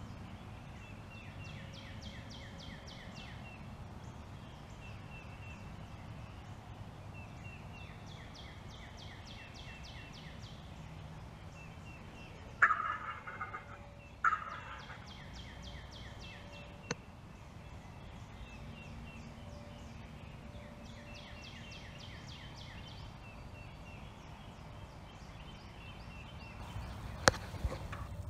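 Wild turkeys calling: a hen cutting in runs of quick, sharp clucks, and a tom gobbling loudly twice about halfway through. The hen's cutting is the call of an excited hen. A sharp click sounds near the end.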